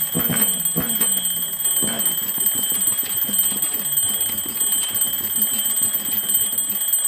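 Electronic alarm clock ringing: a steady, shrill beep tone with a fast buzzing pulse. Deep, booming bass-drum hits sound under it during the first two seconds.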